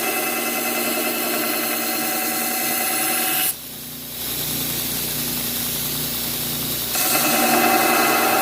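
Power grinder running, grinding the edge onto a blade forged from a pipe wrench. It is a steady, high-pitched whine with a hiss. A little over a third of the way in it drops suddenly to a quieter, lower hum for about three seconds, then comes back just as suddenly.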